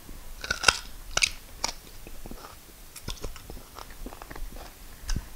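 Close-miked chewing of a mouthful of fufu dipped in peanut soup: wet mouth clicks and lip smacks, several sharp ones in the first two seconds, then softer, steadier chewing.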